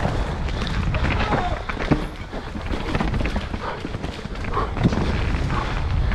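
Mountain bike ridden fast down a dirt and rock forest trail, heard from a helmet camera: wind buffeting the microphone, with tyres running over dirt and leaves and frequent sharp knocks and rattles from the bike over roots and rocks.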